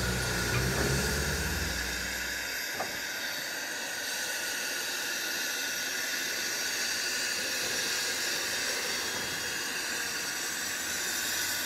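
Steam locomotive No. 704 standing with steam hissing steadily. A low rumble underneath stops about two and a half seconds in.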